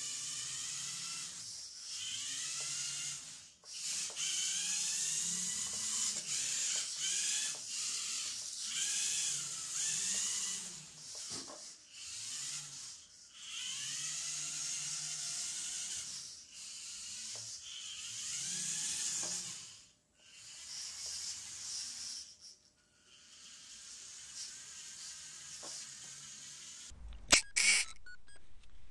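Electric drive motor and gearing of a home-built Fischertechnik RC car whining as it drives, the pitch rising and falling as the throttle is worked, with short pauses between runs. A few sharp clicks near the end.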